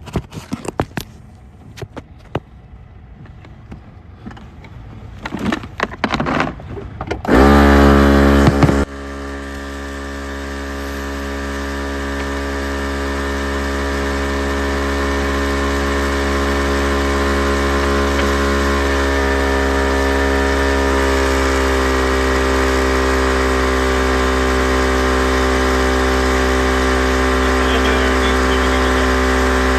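Clicks and knocks of handling, then, about seven seconds in, a brief loud burst as a portable tire air compressor starts, followed by the compressor motor running steadily while it inflates a car tire, its hum slowly getting louder and its pitch easing down slightly.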